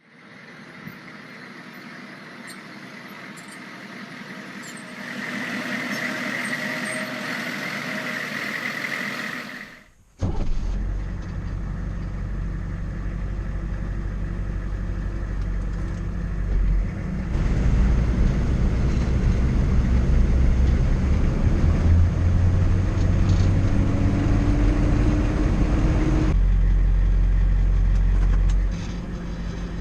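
Armored military Humvee and its V8 diesel engine, recorded for a sound effects library. The first third is a thinner, higher steady mechanical sound. A sudden cut then brings in the engine running with a deep rumble, which grows louder with a slowly rising whine before settling back near the end.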